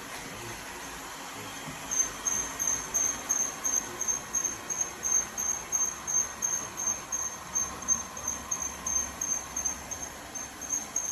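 Robot vacuum running with a steady hiss, under a high-pitched chirping that repeats about three to four times a second from about two seconds in.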